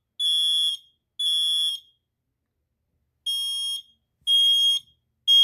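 Kidde smoke alarms sounding the temporal-three fire evacuation pattern during a test: high-pitched beeps about half a second long. The last two beeps of one group of three, a pause of about a second and a half, then a full group of three.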